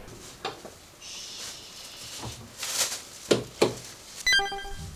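Front-door handling in a small entryway: a lever handle clicking, scattered knocks and footsteps, and a short pitched sound about four seconds in.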